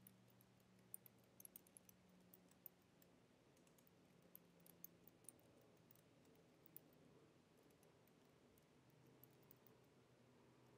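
Faint, irregular key clicks of typing on a computer keyboard, over a faint low steady hum.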